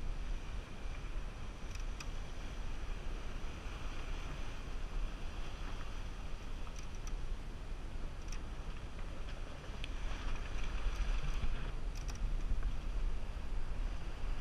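Wind buffeting the microphone over water rushing along the hull of a sailing yacht under sail, with a few light clicks. The rush of water swells briefly about ten seconds in.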